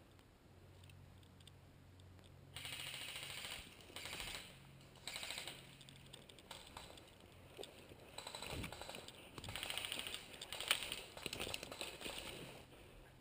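Airsoft electric guns firing on full auto, a fast ticking rattle. Three short bursts start about two and a half seconds in, and longer, broken firing follows in the second half.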